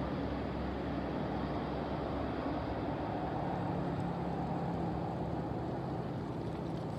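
Steady drone of distant motor engines, a low hum under a constant rush of noise.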